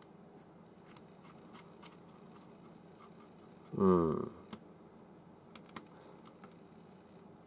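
Light, scattered clicks and ticks of small metal fishing-reel parts being handled as a ball bearing is fitted into the reel.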